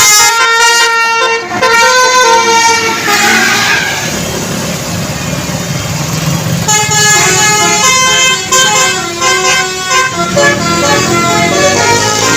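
Basuri 'telolet' multi-tone bus horn playing a stepped melody of loud held notes. It breaks off for a few seconds of engine rumble, then the horn melody starts again about seven seconds in.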